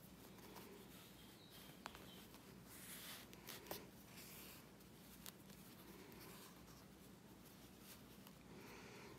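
Faint rustling of embroidery floss and a needle being drawn through a knitted doll's face during hand stitching, with a few light clicks, over quiet room tone.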